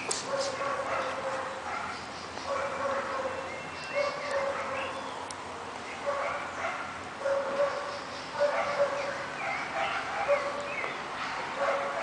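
Short, high-pitched animal cries repeated about once a second, each lasting about half a second.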